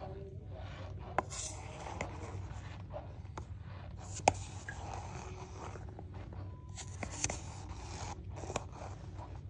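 A metal spoon scraping and digging through clumpy cornstarch in a metal tin. A few sharp clinks come from the spoon striking the tin, the loudest about four seconds in.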